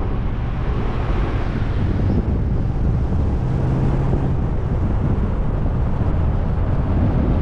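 Car on the move: steady engine and road rumble, with wind buffeting the microphone.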